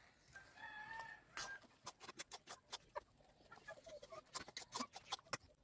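Faint chicken clucking, with a short pitched call about half a second in, mixed with a run of quick clicks and taps as a spatula stirs in a metal kadai.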